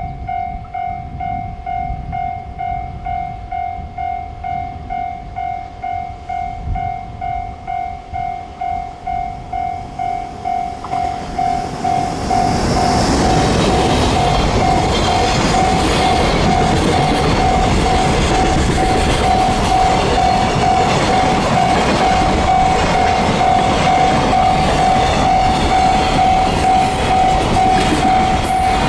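Japanese railway level-crossing warning bell ringing steadily at about two strikes a second. About twelve seconds in, a train arrives and passes over the crossing, its rumble and wheel clatter growing loud and partly covering the bell.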